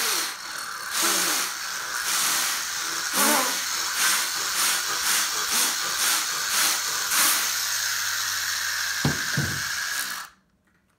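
Air blown hard by mouth through a small 3D-printed PLA Tesla turbine: a loud rushing hiss that swells and dips with the breaths, with a thin steady tone above it. It stops abruptly about ten seconds in.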